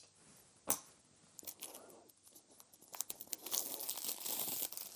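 Plastic wrapping being torn and pulled off a product box after a scissor cut. There are a few sharp clicks at first, then a longer crinkling tear through the second half.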